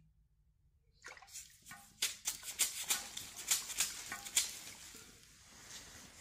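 Water splashing and spattering as a water-filled hose is pulled out of a large clay water jar and swung, spraying water. A quick run of splashes and drips starts about a second in, is busiest between two and four and a half seconds, then fades to a faint wash.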